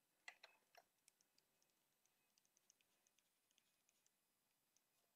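Faint, irregular ticks of a stylus tapping and writing on a tablet screen, with a short cluster of louder taps under a second in.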